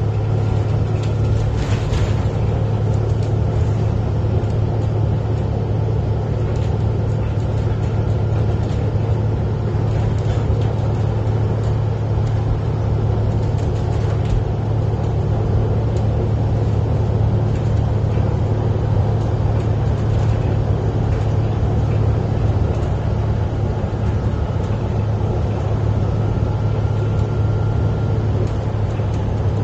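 Steady low rumble of a moving road vehicle heard from inside the cabin: engine and tyre noise at a constant cruising speed.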